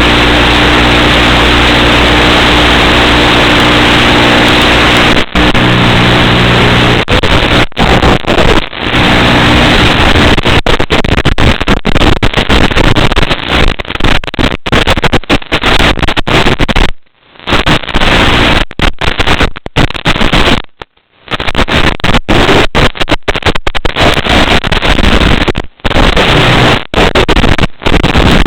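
FPV racing drone's electric motors and propellers buzzing loudly, with a steady hum for the first few seconds. After that the sound turns choppy and cuts out again and again, twice for most of a second.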